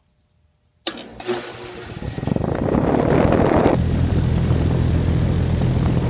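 A 2008 Goodman 3-ton central air conditioner condenser starting up after a short compressor lockout delay. It switches on suddenly about a second in and builds over a couple of seconds into a loud rushing run, with a steady low hum from its replacement scroll compressor setting in about halfway through.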